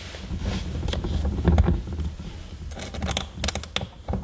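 Allen wrench turning a screw on a metal brace bracket: small metallic clicks and scraping, with a quick run of sharp clicks about three seconds in.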